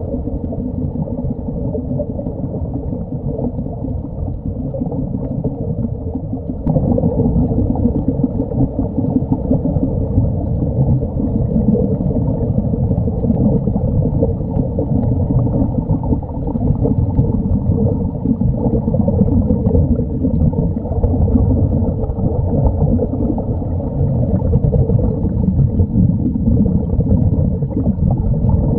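Muffled underwater rumble and bubbling, heard through a waterproof camera housing, with air bubbling out of the Sea Trek diving helmets. It gets louder about seven seconds in.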